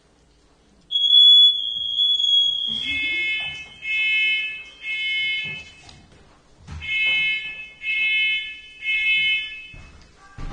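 Smoke alarm going off: a loud, steady, high-pitched tone for about two seconds, then shrill beeps in two groups of three with a pause between. This is the three-beep evacuation pattern of a fire alarm.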